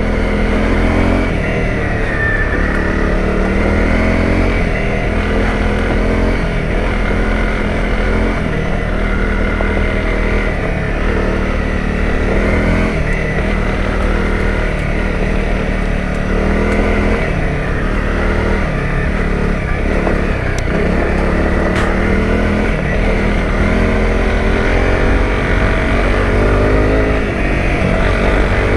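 Honda CRF250 Rally's single-cylinder 250 cc engine riding off-road, its revs rising and falling over and over as the throttle is worked over muddy, slippery ground.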